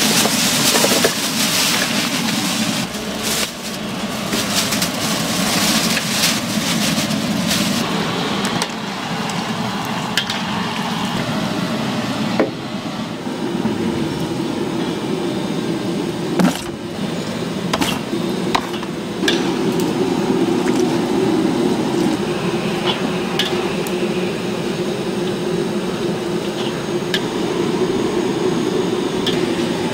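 Large wok of water at a rolling boil giving a steady rushing noise, with a metal skimmer knocking and scraping against the wok as meat pieces are dropped in and stirred; a couple of sharper knocks come about halfway.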